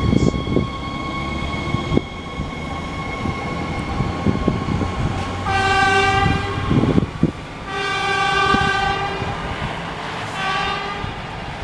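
NJ Transit River Line Stadler diesel light rail train (DMU) pulling away from the station, its engine rumbling steadily, and its horn sounding three times: a short blast, a longer one, then another short blast.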